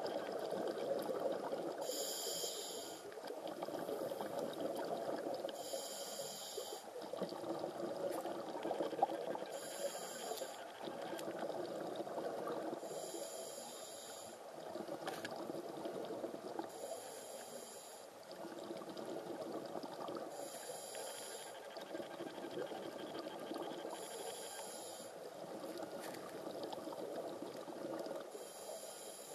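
A scuba diver breathing underwater through a regulator: a hissing inhale every three and a half to four seconds, with bubbling exhaust between the breaths.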